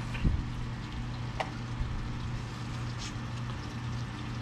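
Steady low mechanical hum, with two small sharp clicks about a second and a half apart.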